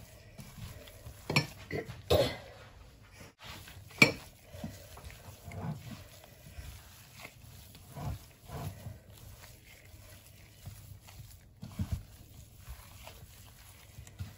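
Gloved hand squeezing and kneading raw ground pork and sliced boiled pork skin in a pot: irregular wet squelches, with sharper knocks against the pot about two and four seconds in.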